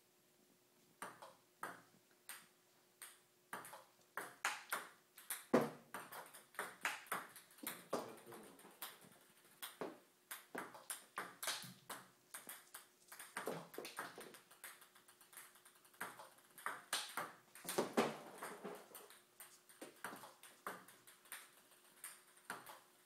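Table tennis forehand drill: a ball clicking off the paddles and bouncing on the table, starting about a second in and going on as a quick, steady run of several hits a second.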